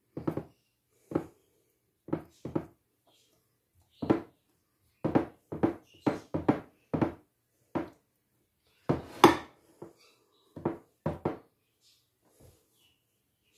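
A spatula scraping and tapping against loaf pans while thick, stiff batter is smoothed into them. It makes a string of short, irregular knocks and scrapes, the loudest about nine seconds in.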